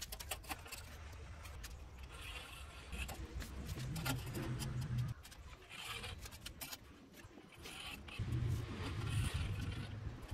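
Scraping and rubbing on a concrete floor as an aluminium bar is set down and slid as a straightedge and a line is marked along it, in several short strokes with scattered light clicks. A low rumble comes up twice underneath.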